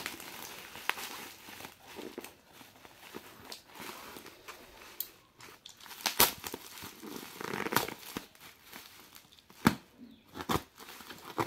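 Box cutter slicing and tearing through bubble-wrap and taped plastic packaging, with irregular crinkling of the plastic and a few sharp snaps in the second half.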